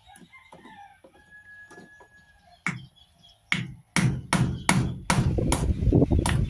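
Hammer driving nails through the wire guard of an old electric fan into a wooden plank. Two separate blows come first, then a quick run of loud blows, about two or three a second, from around four seconds in. A chicken clucks faintly during the quiet first couple of seconds.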